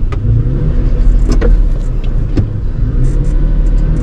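Holden Rodeo's V6 petrol engine running smoothly as the ute rolls along at low speed, with a few sharp clicks over the steady rumble. New coils and spark plugs have cured its misfire.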